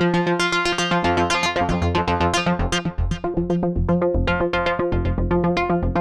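Sequential Take 5 analog polysynth playing a preset as a fast sequenced pattern of short, bright repeated notes. A deep bass part joins in about a second in.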